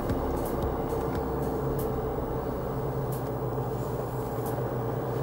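Car driving at road speed, heard from inside the cabin: a steady engine and tyre rumble with a low hum, and a few faint ticks.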